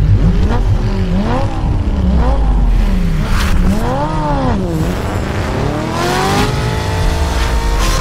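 Car engine revving up and down several times, then climbing and holding at a steady high pitch from about six and a half seconds in.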